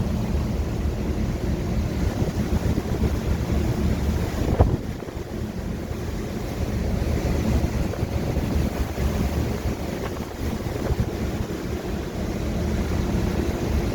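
Strong wind blowing and buffeting the microphone, a low rumble that rises and falls with the gusts. There is one brief thump about four and a half seconds in.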